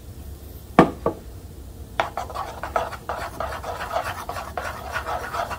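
A utensil knocks twice on a mixing bowl, then gives quick, irregular scraping and tapping as food colour is stirred into the cookie batter.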